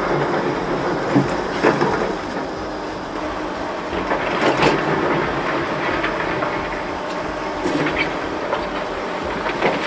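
Caterpillar tracked excavator working among rocks and debris, its engine running steadily, with several sharp metallic clanks and knocks.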